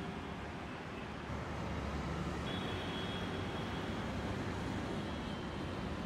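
Steady urban road traffic noise, a low rumble of passing vehicles that grows slightly louder about a second in. A faint thin high-pitched tone runs through the middle for a few seconds.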